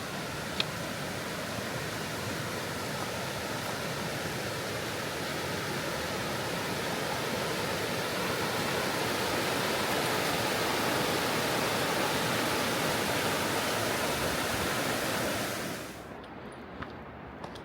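River water rushing steadily, a little louder in the middle, then dropping away suddenly near the end, leaving a quieter background with a few faint clicks.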